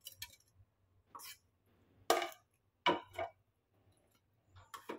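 A spoon scraping and clinking against a metal pan of sugar syrup and a plate as soaked fried bread pieces are lifted out: a handful of short, separate clatters about a second apart.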